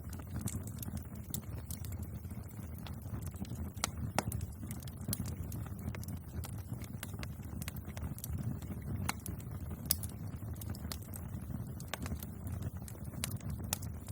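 Wood fire burning, with a steady low rumble of the flames and sharp crackles and pops of burning wood at irregular moments.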